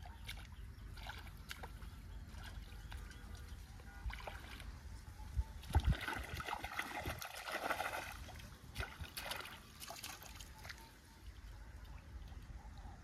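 Pond water splashing and sloshing, with a louder stretch of splashes in the middle.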